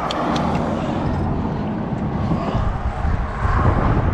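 Wind rumbling and buffeting on the microphone, with a few light clicks just at the start.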